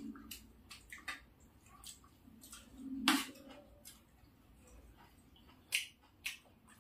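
Quiet eating sounds: scattered clicks and scrapes of spoons on plates along with chewing, and one louder short sound about three seconds in.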